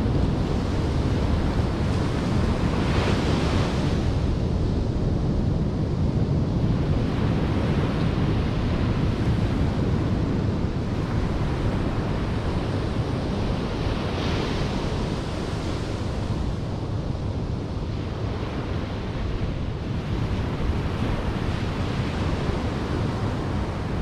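Ocean surf breaking and washing up a sandy beach, with wind buffeting the microphone in a steady low rumble. The surf swells louder about three seconds in and again about fourteen seconds in.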